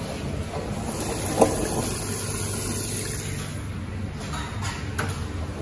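Commercial front-loading washing machines running their first rinse: a steady hum with water sloshing as the drum turns. A single sharp knock comes about a second and a half in.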